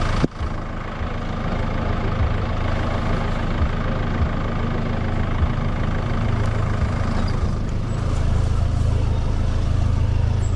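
Troller 4x4's diesel engine running steadily, with a sharp click about a quarter second in and a slight rise in level near the end.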